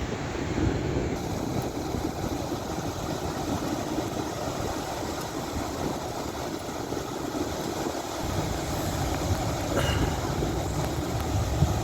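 Wind buffeting the microphone over the steady rush of sea surf, with the low rumble growing stronger about eight seconds in.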